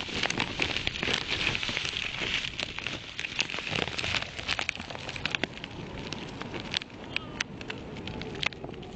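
Wind buffeting the microphone of a phone flying strapped to a kite, a dense crackling with many sharp clicks that thins out in the second half.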